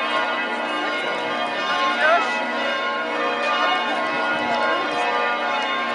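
Church bells pealing continuously, many overlapping bells ringing together, over the chatter of a crowd.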